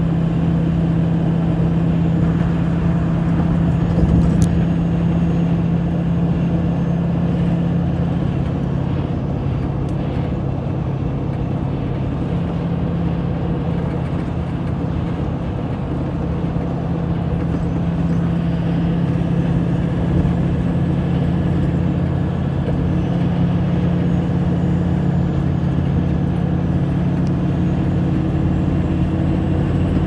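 Steady cabin noise of a vehicle driving at highway speed: a constant engine drone with tyre and road noise, and a brief knock about four seconds in.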